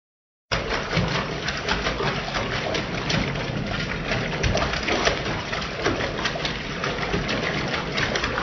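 Tap water running into a bathtub, a steady rush with many small splashes as a cat moves about in the shallow water under the stream. It cuts in about half a second in.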